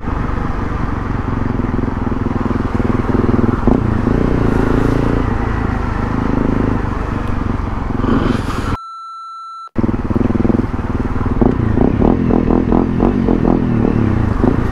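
Motorcycle engine running under way. A bit under nine seconds in it cuts out for about a second, leaving only a steady beep, then the engine comes back in uneven pulses.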